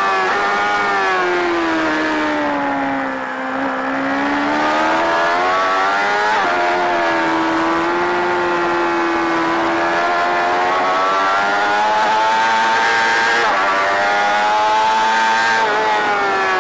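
Onboard sound of a BMW sport bike's engine at full racing revs, with wind rushing past. The revs drop under braking to a low point about 3 s in, then climb again as the rider gets back on the throttle, with a quick gear change about 6 seconds in and another near the end.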